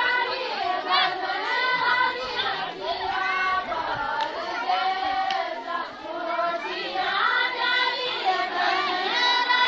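A group of women singing a Kumaoni jhoda (chanchari) folk song together in chorus.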